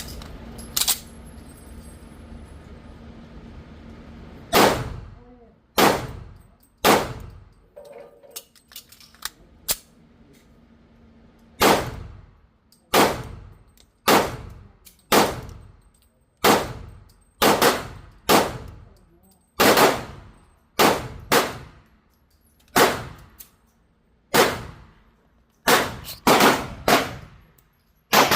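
Sig Sauer P229 pistol firing. Three shots about a second apart, a pause with a few faint clicks, then a long string of shots at about one a second, some fired in quick pairs. Each shot is a sharp crack that rings out and fades.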